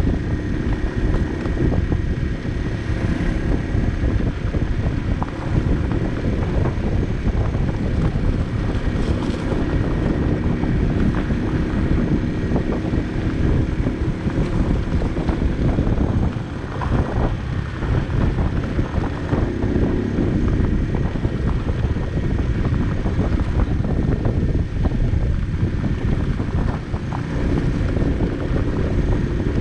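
Barton Volcano 50cc moped engine running at riding speed on a rough gravel road, mixed with wind buffeting the microphone. The engine sound dips briefly a little past halfway, then picks up again.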